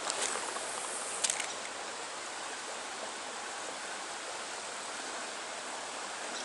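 Steady rush of a trout stream's flowing water, with mechanical clicking and ratcheting from a fishing reel being worked. Sharp clicks come in the first second and a half.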